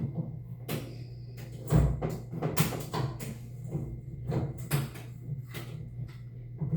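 Irregular clicks, knocks and clatter of shower fittings being handled and screwed together, a dozen or so sharp taps with the loudest about two seconds in, over a steady low hum.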